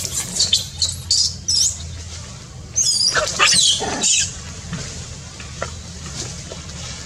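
Short high-pitched squeaky animal calls in two quick clusters, the first in the opening second and a half and the second about three seconds in, over a steady low background hum.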